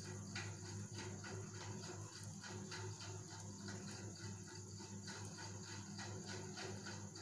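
Egg and bread frying in butter on a hot tawa, with a faint irregular crackle and sizzle of many small ticks over a steady low hum.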